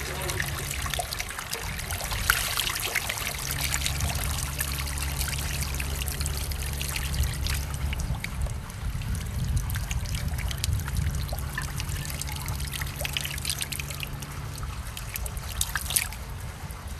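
Water spilling over the lip of a concrete basin and trickling down its wall, a steady patter of small splashes as a hand dips into the flow, with a few sharper splashes, the loudest near the end. A low steady hum runs underneath.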